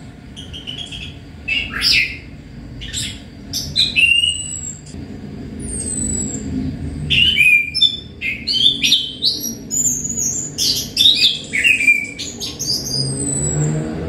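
Caged songbird singing a busy, varied run of sharp chattering notes and short whistles, many of them sliding down in pitch, in bursts with short pauses between.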